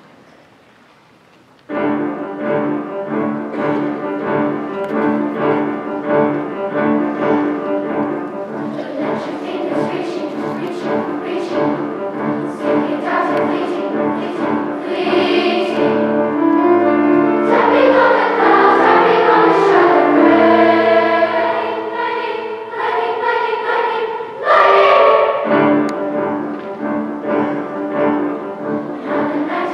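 A grand piano starts an introduction with a repeated pulsing pattern about two seconds in, and a large children's choir comes in singing over it, growing louder as the song goes on.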